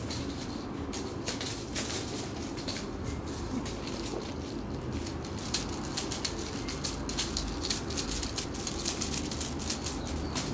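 Scattered light ticks and taps, irregular and coming more often in the second half, over a steady low room hum.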